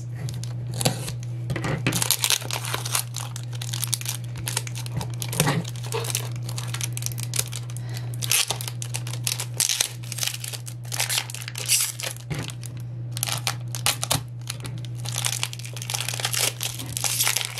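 Clear plastic shrink-wrap being torn and peeled by hand off a small cardboard box: continuous irregular crinkling and sharp crackles. A steady low hum lies underneath.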